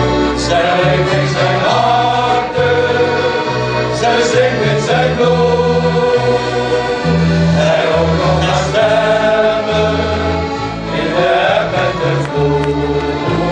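A shanty choir and its accordion band performing a Dutch sea song, with bass notes stepping under the melody.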